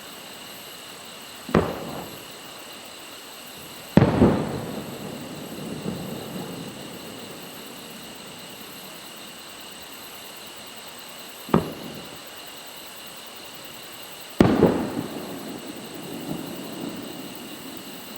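Aerial fireworks going off twice, each time as a sharp crack followed about two and a half seconds later by a louder bang whose echo rolls on for a couple of seconds.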